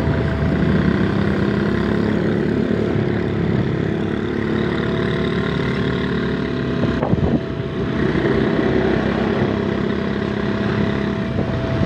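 Small motorcycle engine running steadily at cruising speed, with wind and road noise, dipping briefly about seven seconds in.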